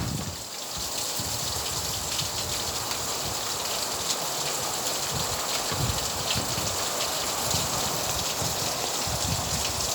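Steady rain falling, a constant hiss of many small drops striking a surface.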